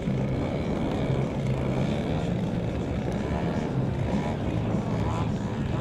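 Radio-controlled aerobatic model airplane's engine and propeller running steadily, the pitch wavering up and down with the throttle.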